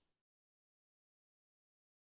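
Silence: a last faint trace of background sound fades out within the first moment, then nothing at all.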